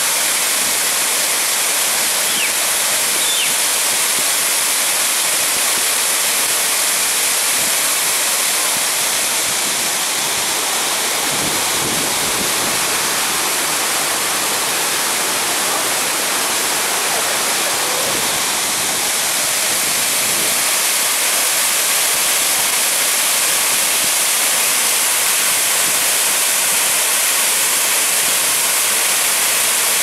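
Waterfall pouring onto rocks: a steady, loud hiss of falling and splashing water, heaviest in the high range.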